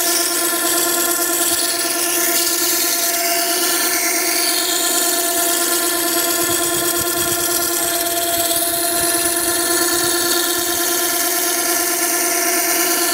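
Makita 9820 electric water-stone sharpener running, its coarse 120-grit wheel grinding the bevel of a plane iron held in a jig. A steady machine hum with a constant hiss of steel on wet stone over it.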